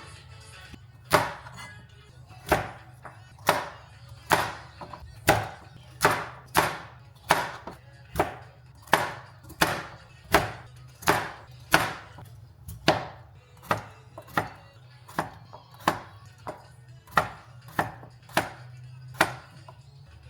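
Kitchen knife chopping food on a cutting board: about two dozen single sharp chops at a slow, steady pace, roughly one every three quarters of a second.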